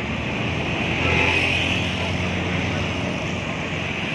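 Road traffic going past close by, with one vehicle passing at its loudest about a second in.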